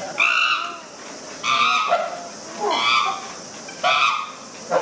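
An animal's short, high-pitched calls, repeated about once a second.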